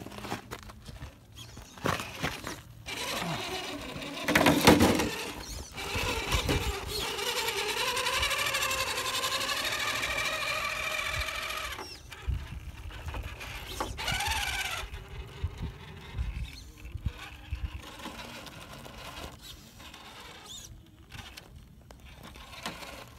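Electric RC rock crawler's motor and geared drivetrain whining under load as it climbs granite, the whine held for about six seconds and rising gently in pitch, with another short whine a couple of seconds later. Knocks and scrapes of the truck on the rock, the loudest about five seconds in.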